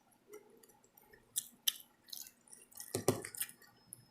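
A person eating close to the microphone: wet mouth smacks and chewing clicks, a scattering of short sharp sounds, busiest and loudest about three seconds in.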